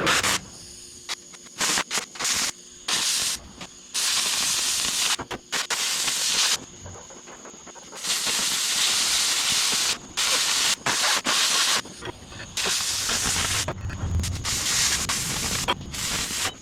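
Arc welding on steel in a series of bursts: a few brief tacks and several longer beads of steady hiss, each about two to three seconds long, starting and stopping abruptly.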